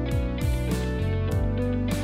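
Background instrumental music with plucked notes over a regular beat.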